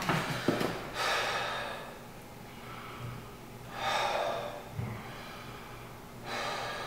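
A man breathing hard in three noisy, breathy gasps: about a second in, around four seconds, and just past six seconds.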